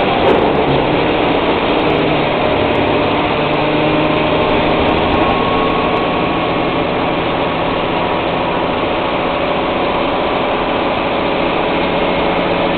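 City bus engine and road noise heard from inside the passenger cabin: a steady, loud, unbroken hum.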